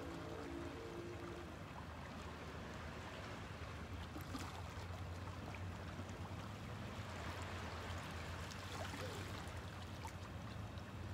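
Gentle lapping and trickling of shallow seawater washing among low rocks at the shoreline, with a steady low hum underneath.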